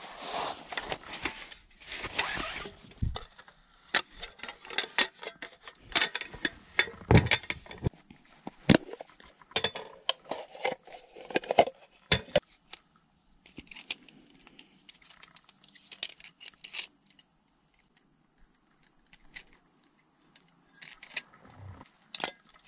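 Irregular clicks, knocks and rattling of hard objects being handled, busy at first and thinning out after about thirteen seconds, over a faint steady high hiss.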